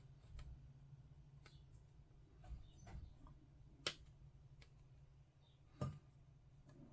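Faint scattered clicks and taps of a plastic miniature sprue and hobby clippers being handled, with a sharper click about four seconds in and a duller knock near six seconds.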